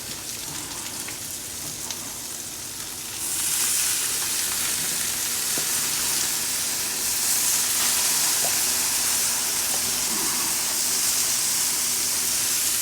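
Steak and hamburgers sizzling on a hot grill, just doused with Worcestershire sauce. The sizzle is a steady hiss that gets louder about three seconds in.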